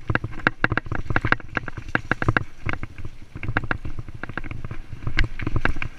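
Mountain bike riding down a rough dirt trail: rapid, irregular rattling and knocking as the bike jolts over bumps, over a low rumble of the tyres on the ground.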